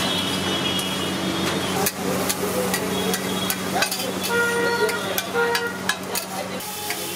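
Long metal spatula scraping and clanking on a large flat iron tawa griddle, a run of sharp clicks and scrapes from about two seconds in, over a steady hum of street traffic. Two short horn beeps sound about halfway through.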